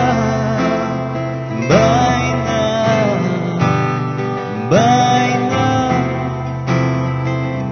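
Acoustic guitar music: sustained chords under a melody that swoops up into a long held note about every three seconds.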